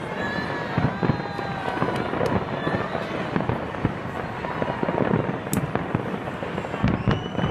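Fireworks display going off: a steady stream of sharp bangs and crackling bursts, with a high whistle near the end.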